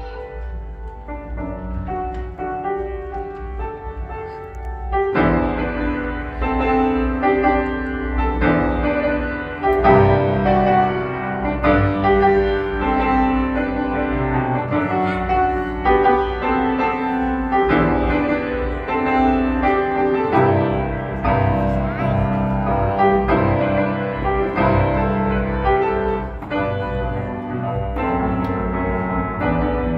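Grand piano played solo. It opens with a softer, lighter passage, then from about five seconds in it gets louder and fuller, with bass notes under the melody.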